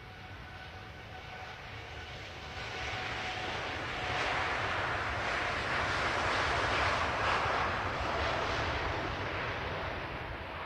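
Boeing 787-9 Dreamliner jet engines passing on departure: a broad roar with a steady whine, swelling to its loudest about two-thirds of the way through and then easing.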